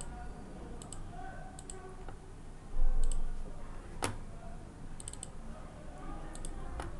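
Computer mouse buttons clicking a number of times, several as quick double or triple clicks, with one sharper click about four seconds in. A dull low thump just under three seconds in is the loudest sound.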